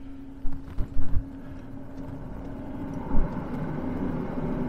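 Inside a parked hybrid car: a few sharp clicks and knocks of the driver working the controls over a steady low hum. About three seconds in, a rushing, fan-like noise rises and holds.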